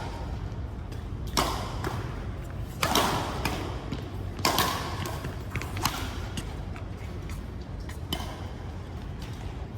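Badminton rackets hitting a shuttlecock in a rally: five sharp hits, roughly one every one and a half seconds, the later ones weaker, over a steady low hum.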